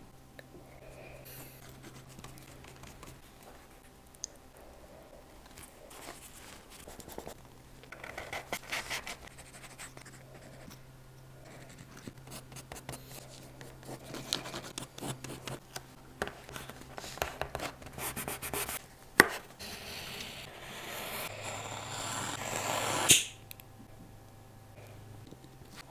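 Leatherworking hand tools scraping and rubbing along the edges of small leather pieces on a cutting mat, in scattered short strokes with a few sharp clicks. Near the end a hiss builds for a few seconds and cuts off with a sharp snap.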